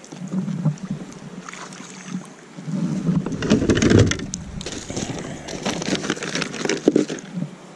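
Plastic bag crinkling and gear being rummaged around a sit-on-top kayak's deck. It gets busier and louder about three seconds in, with bumps against the hull.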